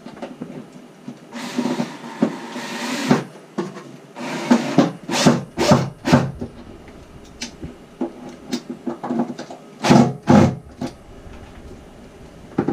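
Cordless drill/driver running in the bilge, fixing a seawater feeder pump in place. It runs once for about a second and a half, then in several short bursts, with sharp clicks and knocks from the tool and fittings being handled.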